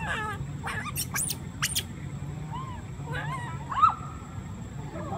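Baby macaques squeaking and cooing: a few quick high chirps in the first two seconds, then short arching coos, the loudest a little before four seconds in, over a steady low rumble.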